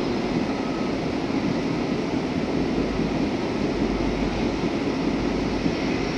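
Freight train rolling past, a steady rumble of wheels and cars on the rails.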